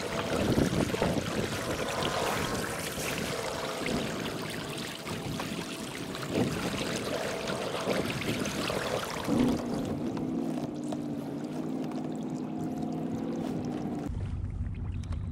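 Lake water splashing and trickling along a moving kayak's hull. About two-thirds of the way through a steady low hum joins in. Near the end the splashing drops away, leaving a low rumble.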